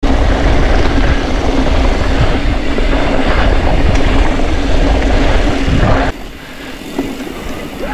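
Mountain bike riding fast downhill on a dirt and gravel road: loud wind buffeting on the bike-mounted camera's microphone over tyre rumble, with a steady low hum. About six seconds in it drops to quieter trail noise with a few light clicks.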